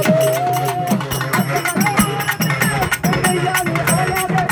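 Urumi melam ensemble playing: fast, driving drum strokes with small hand cymbals clashing in time, over drum tones that slide up and down in pitch.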